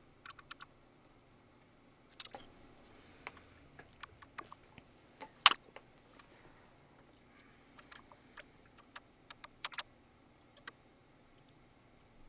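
Scattered small clicks and taps of a screwdriver and screws being worked out of the Digidesign 003 console's side casing, with one sharper knock about midway.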